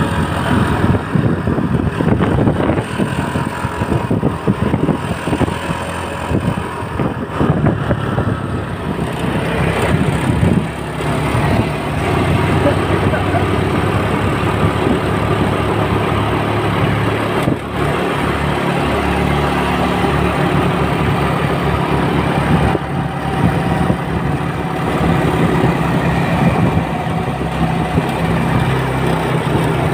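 A bus engine running, rough and uneven for the first ten seconds or so, then settling into a steadier hum.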